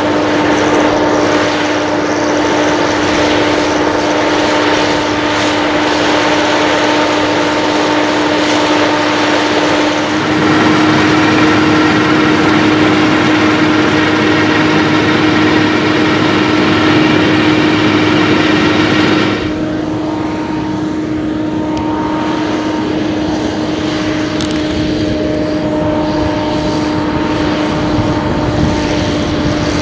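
John Deere 7930 tractor's six-cylinder diesel engine running steadily under load while pulling a power harrow, with a steady engine tone. The sound grows a little louder about ten seconds in, then changes abruptly and drops in level a few seconds past the midpoint.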